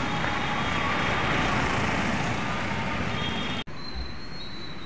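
Road traffic at a junction: a steady rush of engines and tyres that cuts off suddenly near the end, leaving a quieter background hum.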